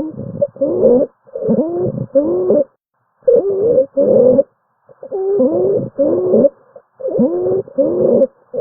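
Stridor: harsh, high-pitched breath sounds of about half a second each with a rising pitch, repeating rapidly in pairs and short runs with brief pauses. The sound is the sign of a narrowed upper airway.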